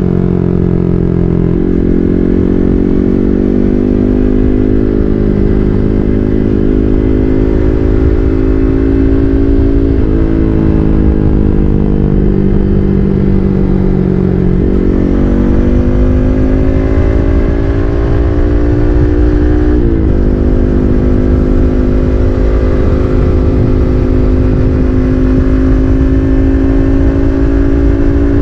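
Yamaha MT-15's 155 cc single-cylinder engine running through an SC Project full-system exhaust while the bike is ridden. The engine note climbs steadily through the revs and drops sharply at each gear change, three times. In one stretch it falls away off the throttle, then picks up again.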